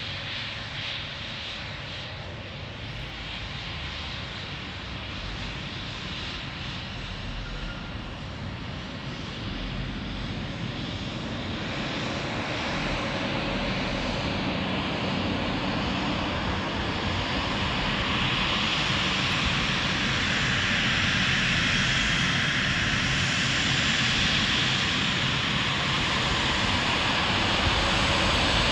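Embraer E195 airliner taxiing, its two GE CF34-10E turbofan engines running at taxi power and growing steadily louder as it rolls closer. The engines' high whine builds strongly over the last ten seconds.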